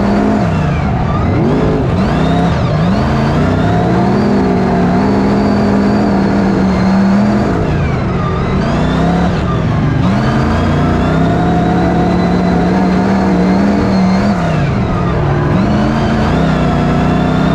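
BriSCA F1 stock cars racing, their V8 engines loud and continuous. The engine note dips and climbs back up a few times as the cars lift off and accelerate again.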